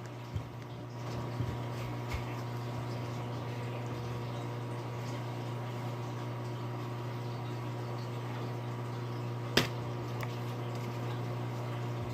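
Steady low background hum with a few faint ticks, and one sharp click about nine and a half seconds in.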